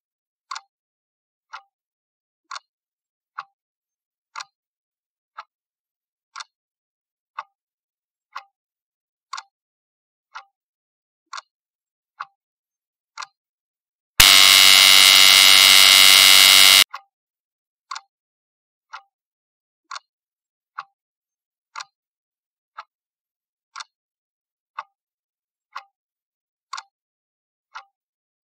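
Countdown-timer sound effect: a clock ticking about once a second, with a loud buzzer about halfway through, lasting about two and a half seconds, that marks the time running out. The ticking then starts again.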